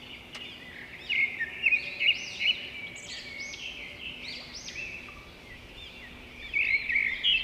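Several small birds chirping, short high overlapping calls, louder in bursts about a second in and again near the end, over a steady background hiss.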